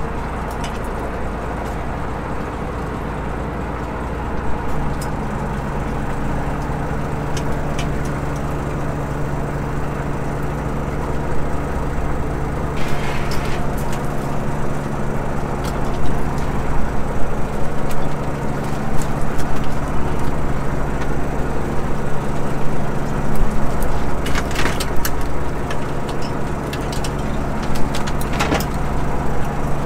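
Fishing boat's engine and deck machinery running steadily, with a deeper hum coming in about five seconds in. A few sharp clicks or knocks from the gear come through in the second half.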